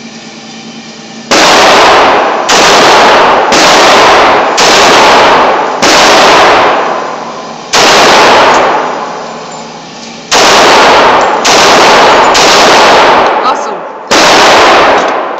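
A .45 1911 pistol being fired, about ten loud shots roughly a second apart with a pause in the middle, each ringing out in the echo of an indoor range. A steady hum of ventilation fills the short lead-in before the first shot.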